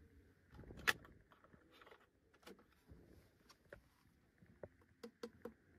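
Scattered light clicks and taps of a hand on hard plastic interior trim, the sharpest about a second in, with a quick run of small ticks near the end.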